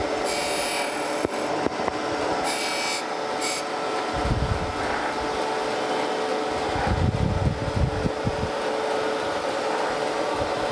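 Landis surface grinder running, its wheel spinning with a steady hum while the table is moved by hand beneath it. Twice early on there is a brief high-pitched hiss as the wheel lightly touches the straight edge casting, and there are low rumbles midway as the table slides.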